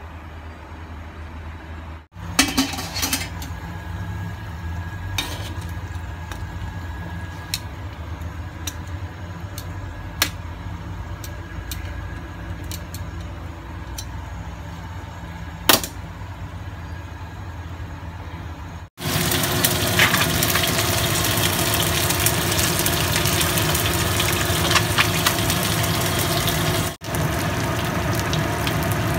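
Metal tongs clicking and tapping against a wok now and then over a steady low hum. Past the middle comes loud, steady sizzling of a whole fish frying in hot oil in a wok with slices of ginger.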